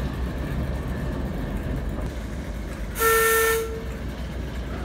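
Class 08 diesel shunter giving one short horn blast, under a second long, about three seconds in. Its diesel engine rumbles steadily underneath as it moves a brake van.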